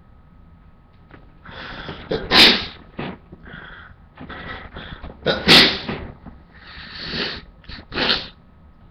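A man sneezing twice, about two and a half and five and a half seconds in, each sneeze preceded by a gasping build-up, with noisy breaths between and after.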